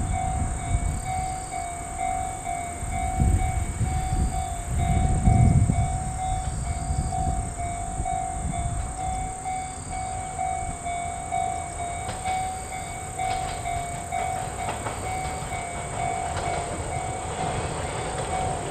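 Level crossing alarm ringing in a steady, evenly repeating tone while a Chichibu Railway 5000 series electric train (ex-Toei Mita Line stock) approaches, its running rumble and wheel clicks growing louder in the second half. Gusty low rumble, likely wind on the microphone, comes and goes around the middle.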